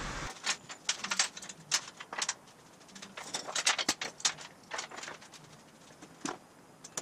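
Steel chain clinking and rattling as it is handled and hooked around a steel frame rail: a run of irregular light metallic clinks that stops about six seconds in.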